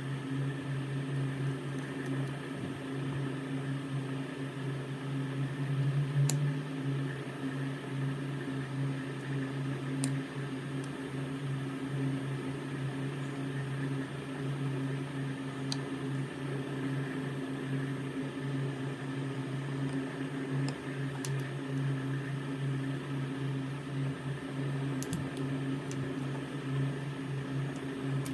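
Steady mechanical hum, like a small fan or motor running, with a few faint clicks.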